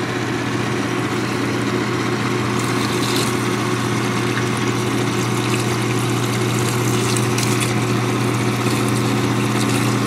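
GE Potscrubber 970 dishwasher's motor and pump running with a steady hum during the drain, pumping water out through the drain hose into a standpipe.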